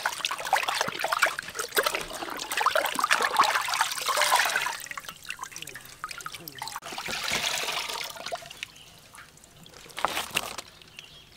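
Water splashing and sloshing in a steel basin as hands rub and rinse whole fish, busiest in the first four or five seconds, then lighter drips and splashes as a fish is lifted out of the water.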